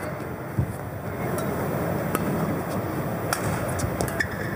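Badminton rackets striking the shuttlecock during a rally: a series of sharp, crisp hits spaced roughly a second apart, over the steady background noise of the hall.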